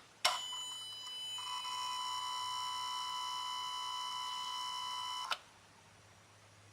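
A steady electronic whine with several overtones. It starts with a click just after the start, shifts slightly in tone about a second and a half in, and cuts off with a click about five seconds in, while an electronic throttle body reset runs.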